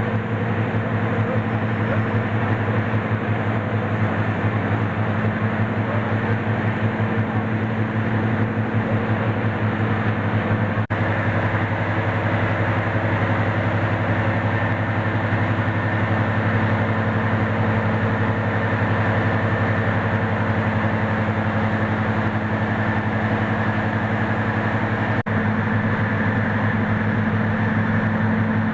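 British Rail Class 55 Deltic locomotive's twin Napier Deltic two-stroke opposed-piston diesel engines idling steadily with the locomotive at a standstill. The sound drops out momentarily twice, about eleven seconds in and near the end.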